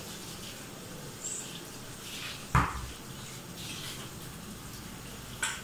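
Steady kitchen room noise with one sharp knock about halfway through and a couple of faint clicks.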